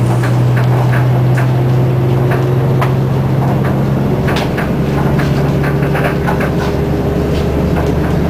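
Inside a Hyundai Super Aero City city bus under way: a steady low engine drone whose note shifts slightly about halfway through, with frequent irregular rattles and knocks from the bus body and fittings.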